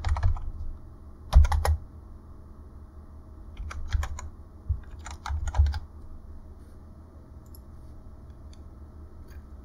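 Typing on a computer keyboard in several short bursts of keystrokes, stopping about six seconds in.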